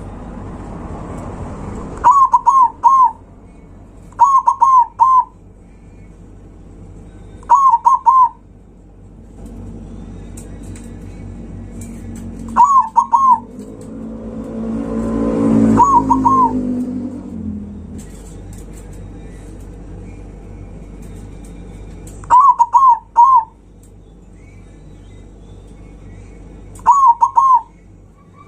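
Zebra dove (perkutut) cooing loudly in short clusters of two or three quick notes, repeated about seven times with pauses of a few seconds between. A vehicle passes around the middle, a rumble that swells and fades.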